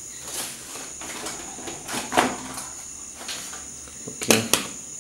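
Small clicks and knocks of a screwdriver and phone parts being handled, the loudest a quick pair of sharp clicks a little after four seconds in, over a steady high-pitched whine.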